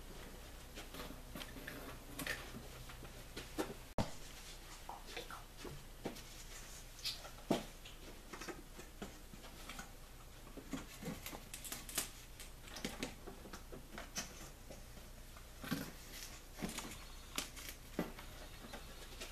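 Light, irregular taps, clicks and rustles of paper cards being handled and pressed onto a whiteboard, over faint room hum, with one sharper click about four seconds in.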